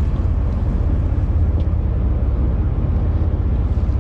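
Steady low rumble aboard a fishing boat at sea, the boat's engine running and wind on the microphone, with no distinct events.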